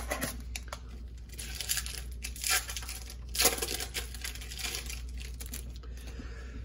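Trading card pack wrapper being torn open and crinkled by hand, in irregular rustles with a couple of louder tearing bursts midway.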